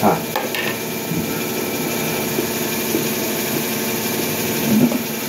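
A steady mechanical hum from an unseen motor, holding several steady tones at an even level, with a person's eating sounds over it: a short mouth sound as the spoon goes in at the start, chewing, and another short sound near the end.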